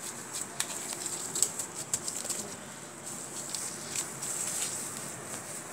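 A ball of stiff flour dough being pressed and smoothed by a gloved hand on a stone countertop: soft rubbing and pressing with scattered light taps.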